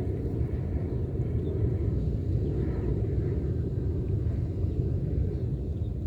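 Steady low rumble without a clear pitch.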